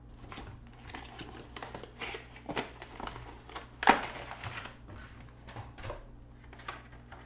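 Cardboard box and clear plastic blister tray being handled, with rustling and crinkling and scattered sharp clicks. The loudest is a single crisp click about four seconds in.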